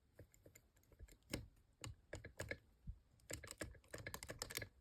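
Faint, irregular small metallic clicks in short clusters: a homemade pick wire working the levers inside a large lever padlock held under heavy turning-tool tension, lifting them a little at a time.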